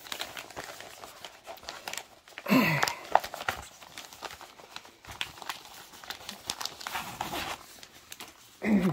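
Clear plastic packaging crinkling and rustling as a cross-stitch kit's chart and contents are slid out of their bag, with many small crackles. Two brief vocal murmurs stand out, about two and a half seconds in and just before the end.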